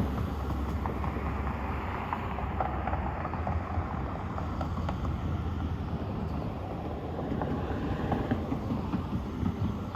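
Electric polisher spinning an airway buffing wheel against the aluminium of a pontoon boat, a steady low drone with scattered small ticks.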